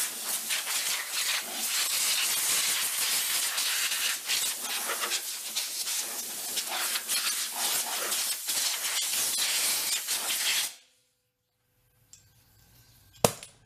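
Pressurised spray hissing steadily for about ten seconds, then cutting off sharply. A single sharp click near the end.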